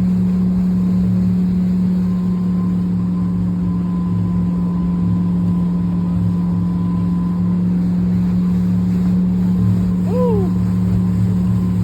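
Motorboat engine running steadily at speed, a constant droning hum while it pulls riders behind the boat. A brief falling voice cry about ten seconds in.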